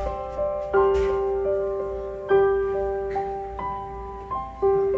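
Slow, gentle piano music: notes struck about every second and a half, each ringing out and fading.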